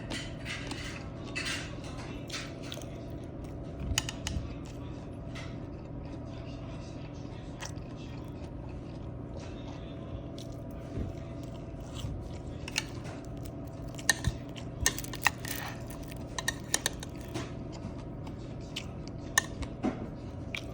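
Someone eating a takeout lunchbox meal: chewing, with sharp clicks of cutlery against the container that come thickest about two-thirds of the way through, over a steady low hum.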